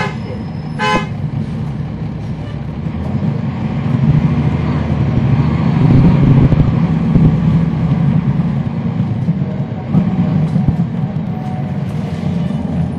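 Cummins ISL9 diesel engine of a NABI 40-foot transit bus with a ZF Ecolife automatic, heard from inside the bus as it drives. The low drone swells from about four seconds in, dips briefly about ten seconds in, then carries on.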